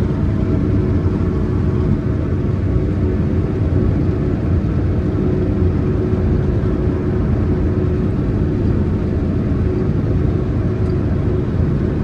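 New Holland CR9060 combine running steadily, heard from inside its cab while it unloads grain through its auger into a grain cart. A constant machine hum with a steady mid-pitched tone over a low rumble, unchanging in level.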